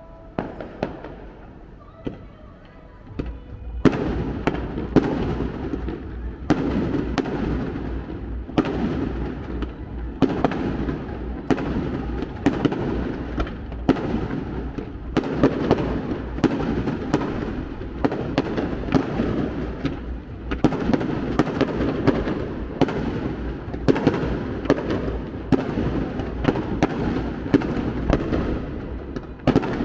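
Fireworks display of aerial shells bursting: a few scattered bangs, then from about four seconds in a continuous barrage of booms with many sharp cracks.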